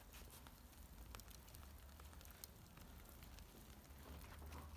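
Faint crackling of a charcoal fire burning in a barbecue grill, with scattered small pops over a low rumble.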